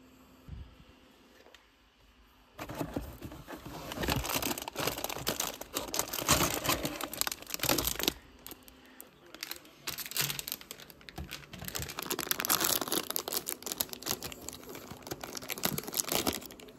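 Foil snack packets crinkling as hands rummage through them, starting about two and a half seconds in, then a foil wrapper being torn and pulled open.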